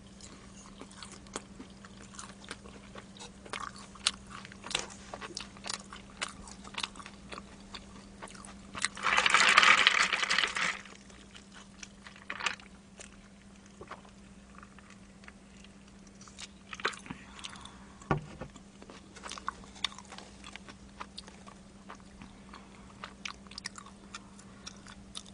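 Close-miked chewing and crunching of fried boneless chicken, with many small crisp bite clicks. About nine seconds in, a louder rushing noise lasts nearly two seconds, and a faint steady electrical hum runs underneath.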